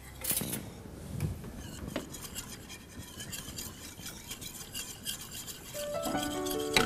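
Milk mixture being stirred in a stainless steel saucepan, the utensil scraping and lightly clinking against the metal pan. Background music with steady held notes comes in near the end.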